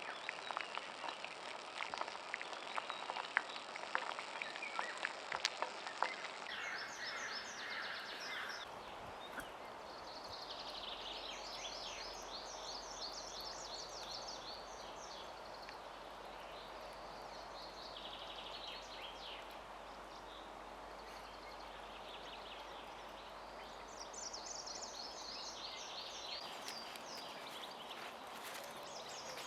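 A few seconds of scattered sharp clicks and crackles, then small birds singing in a forest, short high chirping phrases repeated again and again over a soft steady background hiss.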